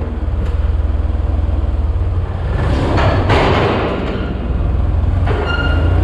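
An engine idling with a steady low chug, having just caught after a hard start. A louder burst of noise comes about three seconds in.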